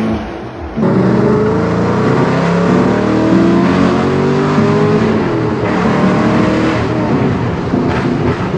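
A car engine accelerating hard, its pitch climbing in several long rises as it pulls through the gears.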